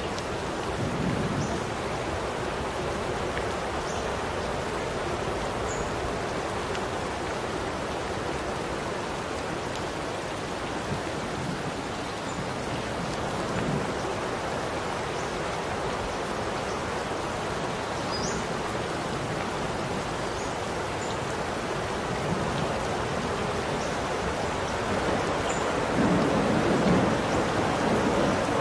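Steady rain falling, with thunder rumbling low several times; the longest, loudest rumble comes near the end.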